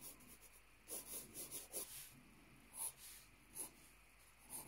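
Graphite pencil sketching on lined notepad paper: a handful of faint, short scratching strokes, spaced roughly a second apart.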